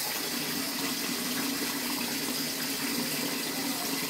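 Water from a tap running in a steady stream into a large basin already full of water.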